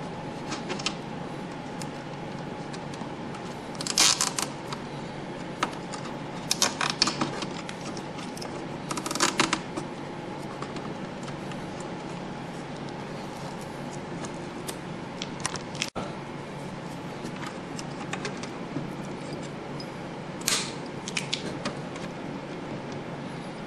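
Plastic cable ties and ink tubes being handled inside an HP OfficeJet 6000 printer: a few short bursts of clicking and rattling, the loudest about four seconds in, over a steady background hum.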